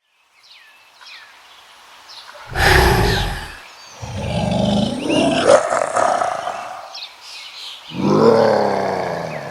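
Angry beast roar sound effect: three loud, deep roars, the middle one long and drawn out, the last falling in pitch. Faint chirps sound beneath them at the start.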